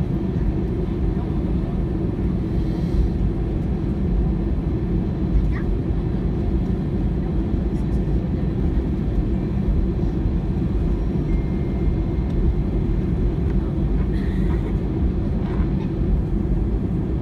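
Steady low rumble inside an airliner cabin as the plane taxis: the jet engines running at taxi power and the aircraft rolling along the taxiway.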